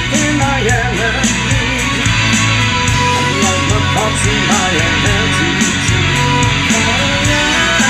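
Progressive rock band playing an instrumental passage: electric guitars over bass and drums, with a lead line that bends up and down in pitch and cymbals struck at an even pulse.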